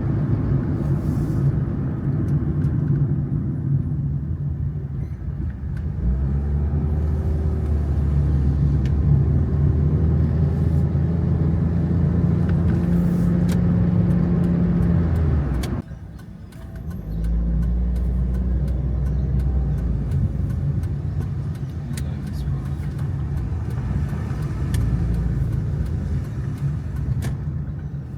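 Car running with a steady low hum of engine and road noise. It drops away abruptly a little past the middle, then picks up again a second later.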